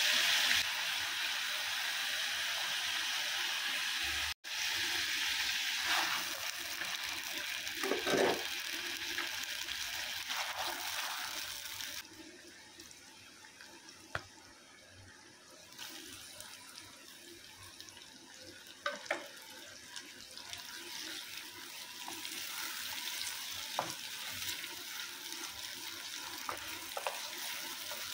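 Chicken pieces sizzling in hot oil in a clay cooking pot; the sizzle drops quieter about halfway through as sliced onions and then tomatoes fry. A few light taps of the wooden spoon against the pot come in the second half.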